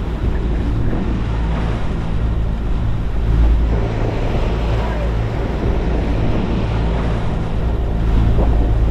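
Wind buffeting the microphone and rough seas rushing and splashing past a sailing catamaran's hulls, over a steady low drone.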